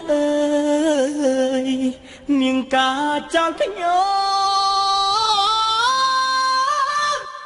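A Khmer song's solo vocal, sung almost unaccompanied. One voice holds long, wavering notes, with the melody climbing in steps through the second half, then breaks off just before the end.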